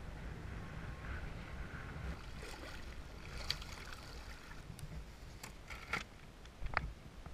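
Muffled low rumble of wind and water buffeting an action camera while kitefoiling. From about two and a half seconds in it is broken by scattered sharp clicks and knocks.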